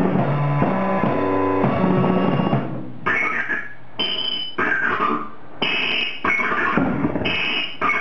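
Live band music from a drum kit and a keyboard synthesizer. A sustained, repeating riff for the first few seconds, then about three seconds in the music breaks into short stop-start bursts, roughly one a second.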